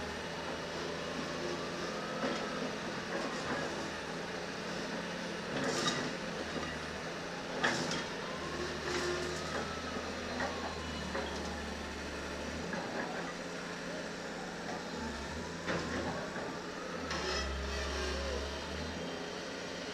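Backhoe loader's diesel engine running steadily, its low hum swelling and dropping. A faint whine rises and falls three times, and there are a few sharp metallic knocks.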